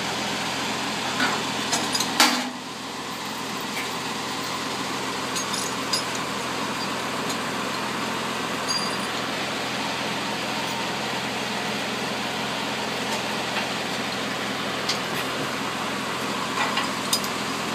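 Diesel engine idling steadily, with steel log chains clinking and clanking against the logs and trailer; the loudest clank comes about two seconds in.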